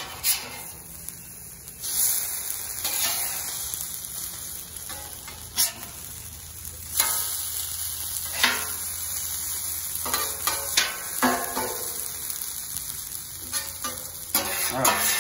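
Shredded hash brown potatoes sizzling on a hot flat-top griddle. Metal spatulas scrape under them and clack on the griddle plate again and again as they are flipped.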